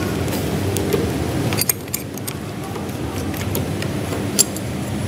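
Irregular metallic clicks and clinks of a socket wrench working a nut as the feed pump of a PE inline diesel injection pump is unbolted, over a steady low hum.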